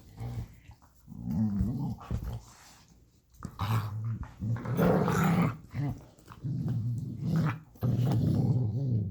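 Puppy play-growling in about four low, rumbling bouts of one to two seconds each, with short pauses between.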